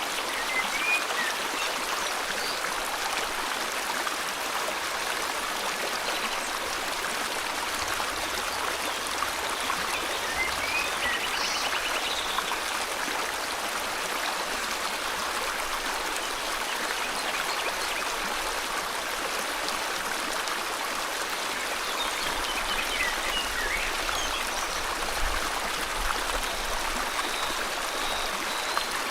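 River water flowing steadily in an even rush, with a few faint bird chirps now and then above it.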